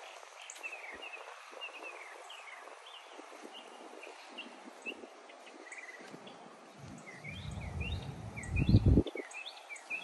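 Many short bird chirps over a steady outdoor hiss. About seven seconds in, a gust of wind buffets the microphone for about two seconds with a loud, low rumble.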